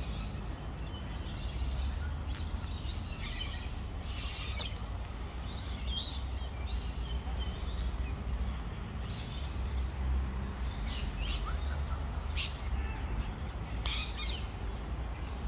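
Park birds calling: many short chirps and squawks at irregular intervals, over a steady low rumble.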